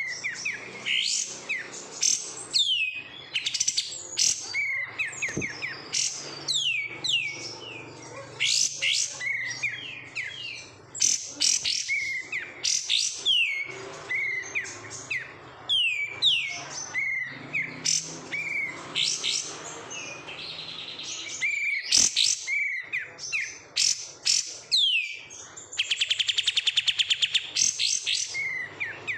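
A caged kapas tembak songbird singing a rapid run of short, down-slurred whistles and sharp chirps. Near the end it breaks into a fast, even rattling trill.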